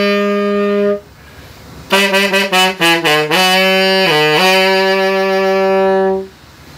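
Unaccompanied saxophone playing a slow melody: a held note that stops about a second in, then after a short pause a quick run of short notes dipping low, ending in a long held note.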